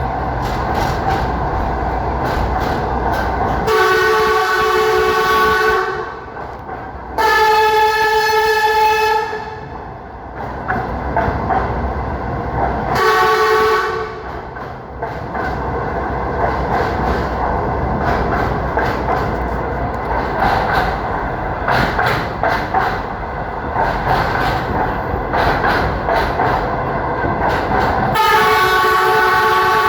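Train running on rails with a steady rumble and rhythmic clatter of wheels over rail joints. A train horn sounds four loud chord blasts: two of about two seconds early on, a short one about halfway, and another near the end.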